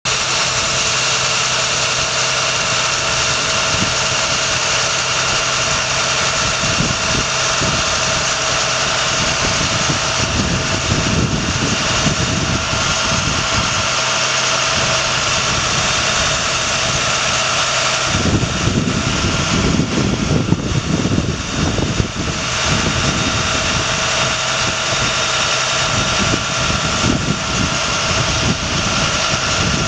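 International DT466 7.6 L inline-six diesel engine of a bucket truck idling steadily, with a steady high whine over it. An uneven low rumble comes and goes in the second half.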